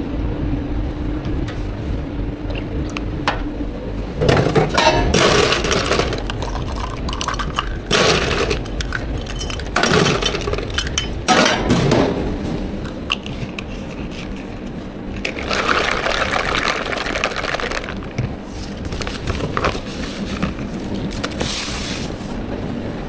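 Bubble tea drink preparation: several separate bursts of liquid pouring and clinking of cups, bottles and ice, each a second or two long, over steady shop background noise.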